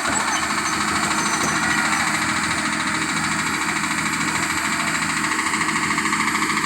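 Diesel engine of a heavy earth-moving machine (the backhoe or the stuck bulldozer) running steadily with an even, fast pulse.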